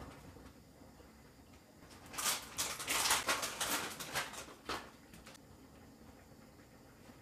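Crinkling and rustling of a plastic packet of seasoned laver (gim) being handled and opened, a rapid crackle that starts about two seconds in and lasts about three seconds.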